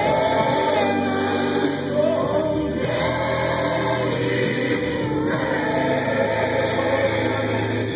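Gospel music: a choir singing a slow worship song in long, held notes that glide between pitches, over a steady low accompaniment.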